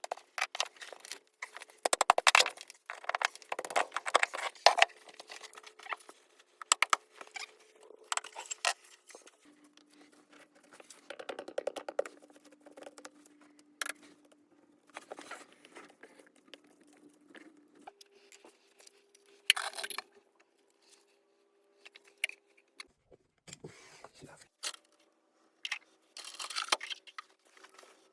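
Plumbing work: clinks, scrapes and knocks of tools and pipe fittings being handled, in irregular clusters, over a faint steady hum that shifts pitch a few times.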